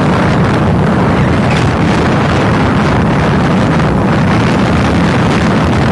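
Steady, loud rush of wind buffeting a phone's microphone on a moving motorcycle, with the drone of motorcycle engines running underneath.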